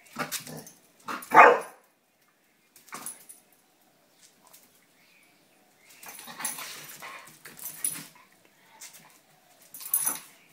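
Two dogs, an American Staffordshire terrier and a fox terrier, play-fighting, with short barks and yips in bursts; the loudest comes about one and a half seconds in, and a longer run of noise follows about six seconds in.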